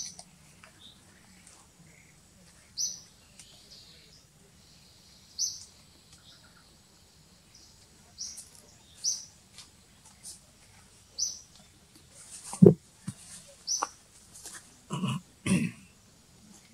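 A bird calling in the trees: short, high chirps of the same shape repeating every two or three seconds. About twelve and a half seconds in there is a sharp knock, the loudest sound, and a little later two short, lower sounds.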